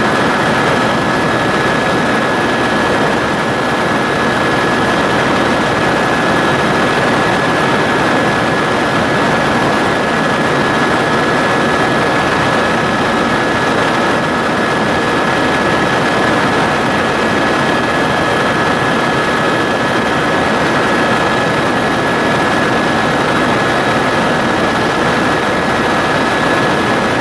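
Tour helicopter in flight, heard from on board: a steady, even drone of engine and rotor noise with a steady high whine above it.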